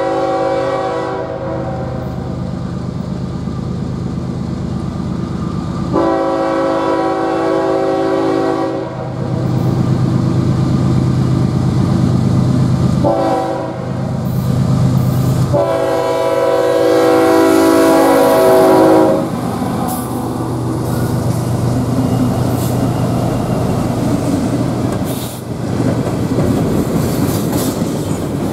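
A GE ES44AC diesel locomotive sounding its horn for a grade crossing in the long-long-short-long pattern. A long blast ends just after the start, then comes another long blast, a short one and a final long one that stops a little past the middle. The engine's rumble passes close by, followed by freight cars rolling past with wheel clatter over the rail joints.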